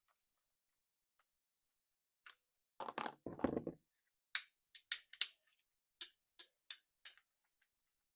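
Hands handling a toy RC car or its packaging: a short cluster of knocks and rustling about three seconds in, then a string of sharp separate clicks, a few per second.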